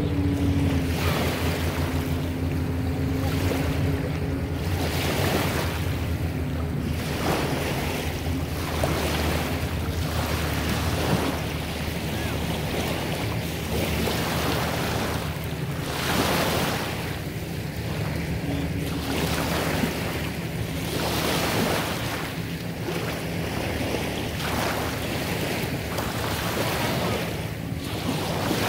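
Small waves lapping and breaking in the shallows of a sandy lake shore, washing in every second or two. Wind buffets the microphone, and a distant motorboat drones steadily underneath.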